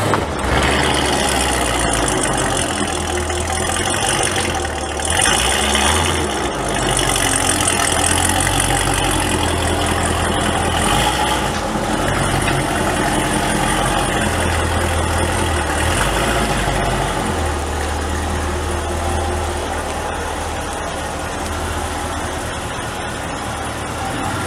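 Cadillac CTS-V coupe's supercharged 6.2-litre V8 running at idle as the car creeps past at low speed, a deep steady exhaust note through Stainless Works long-tube headers and a Corsa sport exhaust with no resonators fitted. The note swells briefly about five seconds in.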